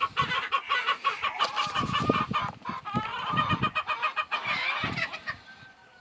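Chickens clucking, many short calls from several birds overlapping, with a few low thumps in the middle.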